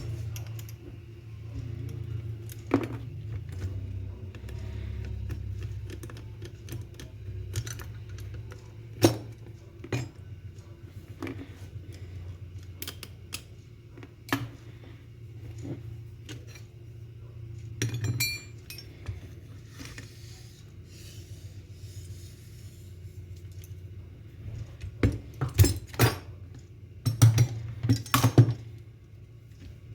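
Small metal parts and tools clicking, tapping and clinking irregularly as an airsoft gun is handled and worked on, with a busier run of taps near the end and a steady low hum underneath.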